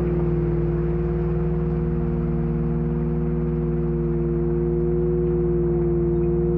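Ambient drone from the VCV Rack software modular synthesizer: several steady low tones held together without change, over a soft wash of noise.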